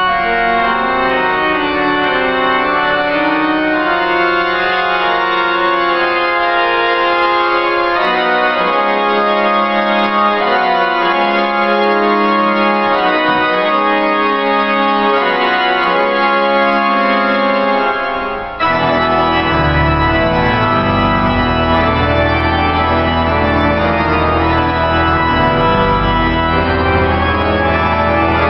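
Pipe organ playing full, sustained chords. About two-thirds of the way through there is a momentary break, and the music resumes with deep pedal bass notes sounding beneath the chords.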